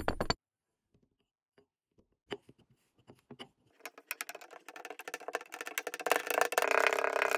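Kinetic sand crunching and crackling as a wooden rod presses it down into a glass. A few soft taps come first, then the dense crackle builds from about four seconds in and holds.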